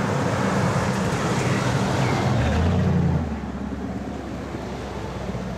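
Black third-generation Pontiac Firebird driving past, its engine note growing to a peak about three seconds in, then falling away as the car moves off.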